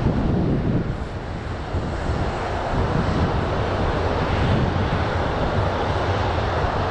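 Airbus A340-600's four Rolls-Royce Trent 500 jet engines running at taxi power as the airliner rolls along the taxiway, a steady jet rumble and hiss, with wind buffeting the microphone.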